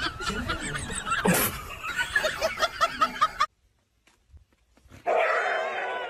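Rapid, high, wavering squeaky animal cries, breaking off into near silence about three and a half seconds in. A loud, sustained animal yowl starts about a second before the end.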